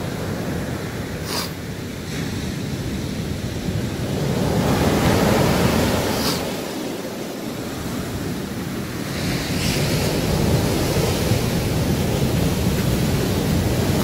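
Ocean surf breaking on the shore: a continuous rushing wash of waves that swells louder a few seconds in and again near the end as waves break and foam up the beach.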